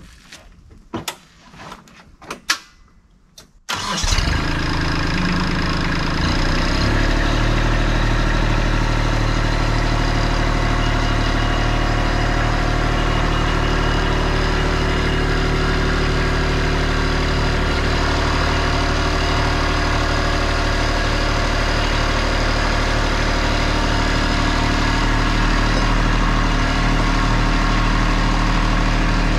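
A few light clicks and knocks, then about four seconds in a Kubota LX2610 compact tractor's three-cylinder diesel engine starts. It settles into a steady run while the front loader lifts.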